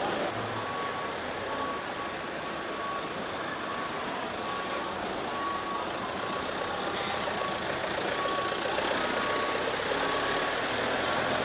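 Ambulance engines running in steady street traffic noise, with a vehicle's reversing alarm beeping repeatedly.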